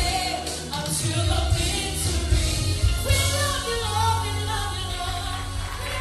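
Gospel music: sung voices carrying a melody over a heavy, steady bass.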